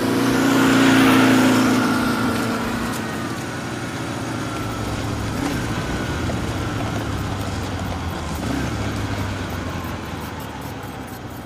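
Motor scooter passing close, its motor hum swelling about a second in and fading away, followed by steady street and traffic noise.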